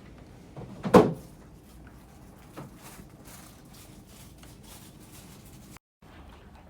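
A single sharp knock or bang about a second in, like a door or cupboard shutting, then a fainter click and low background noise.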